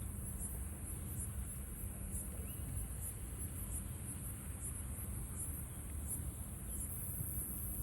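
Insects chirring in a steady, high, pulsing trill over a low rumbling background, with no firework bangs.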